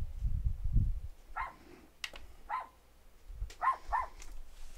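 A dog barking in short, high yaps, four of them, starting about a second and a half in. During the first second there are low knocks from handling on the work surface.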